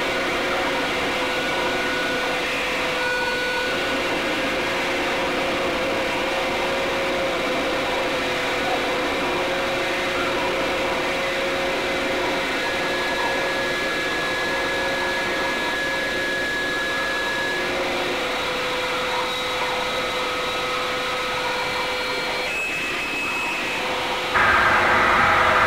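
Television static hiss from a set tuned to no station: a steady rushing noise with faint thin tones drifting in and out. About a second before the end it jumps louder and fuller.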